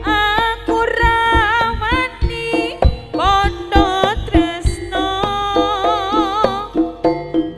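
Javanese jaranan gamelan music: hand-struck kendang drum strokes under a high melody line of held notes that glide between pitches and waver.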